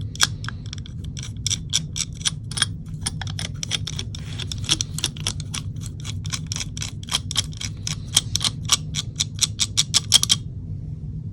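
Rapid, irregular small clicks from hands working on an open airsoft gearbox while its gears are greased. The clicks come a few per second, grow louder and closer together near the end, and stop abruptly. A steady low hum runs underneath.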